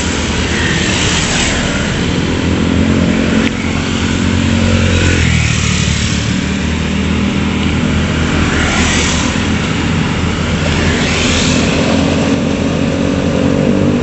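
Heavy construction machinery engines, a bored-pile drilling rig and a wheeled excavator at work, running with a steady low drone. Motorcycles pass on the road close by several times, each rising and fading over it.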